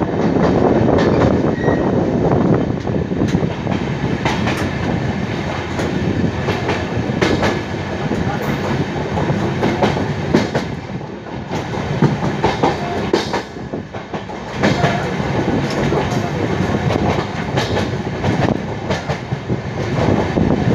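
Railway coach wheels rolling over the rails with a continuous rumble and frequent, irregular clacks as they pass over rail joints and station pointwork, heard from aboard the moving train.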